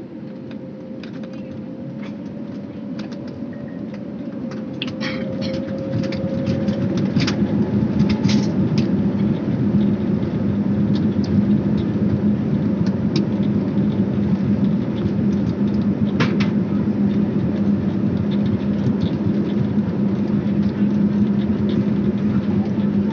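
Jet airliner's engines heard from inside the cabin, spooling up to take-off power: a rumble that grows louder over the first several seconds, then holds steady with a strong hum through the take-off roll. A few scattered clicks and rattles come from the cabin along the way.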